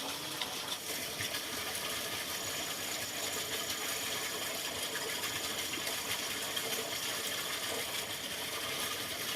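A steady rushing noise like running water, with a few faint light clicks.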